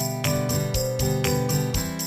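Background music: a melody over a steady beat, with jingling high percussion about four times a second.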